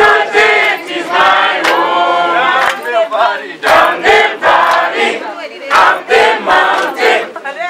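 A group of people singing together in chorus while clapping their hands along with the song.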